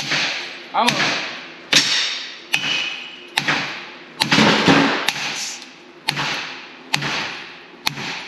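Hand hammer striking a freshly torch-cut piece of 4-inch-thick metal plate about once a second, roughly ten sharp metallic blows, each ringing out as it fades: beating the cut-out loose from the plate.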